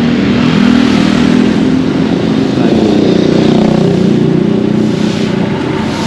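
A motor vehicle's engine running close by in street traffic, steady, with its pitch drifting up and down.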